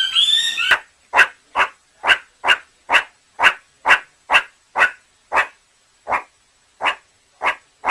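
A dog barking over and over in short, sharp barks, about two a second, coming a little further apart near the end.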